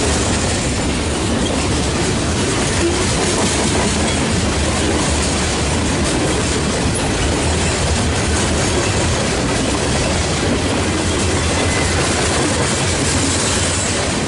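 Loaded coal hopper cars rolling past, a steady, unbroken noise of steel wheels running on the rails.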